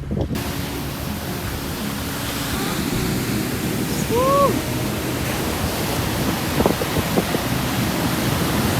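Heavy surf and wind after a typhoon: a steady rush of breaking waves. A little past four seconds in there is one short call that rises and then falls.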